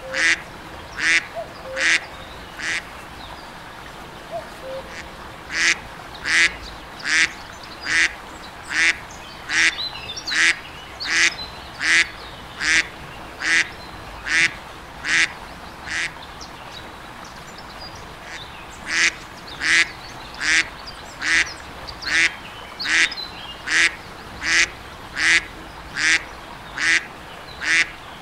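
A duck quacking in a long, evenly spaced series, about one quack every three-quarters of a second, stopping twice for a few seconds before starting again.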